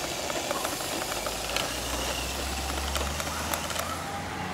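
Radio-controlled 6x6 truck driving over dirt and dry fallen leaves: its motor and drivetrain whirring, with scattered crackling clicks, and a low hum that comes in about two seconds in.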